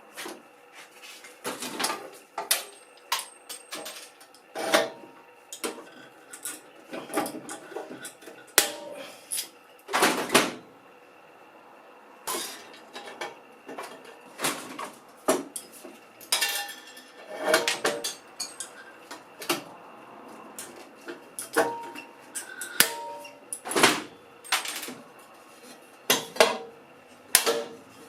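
Irregular clinking and clattering of hard, metallic-sounding objects being handled, some knocks leaving a brief ring.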